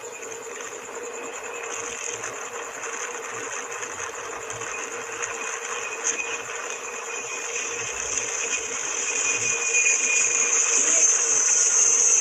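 Steady aircraft engine noise: a high hiss over a steady hum that grows louder through the second half.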